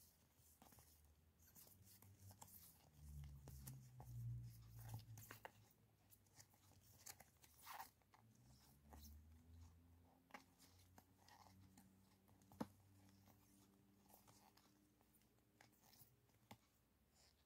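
Faint crinkling and ticking of clear plastic die-cut stickers being shuffled and rubbed together in the hands, with scattered small crackles.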